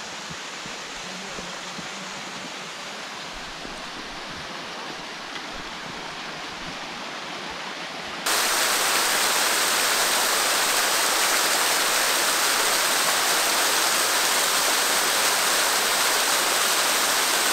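Steady rushing hiss of a thin mountain waterfall splashing down layered rock ledges. For the first eight seconds it is a fainter, more distant rushing, then it comes in suddenly much louder and brighter and holds steady.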